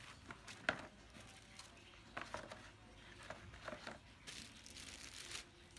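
Clear plastic packaging sleeve crinkling and rustling as a laptop is slid out of its molded pulp cardboard end-caps, with scattered faint crackles and a sharper click about a second in, then a longer rustle near the end.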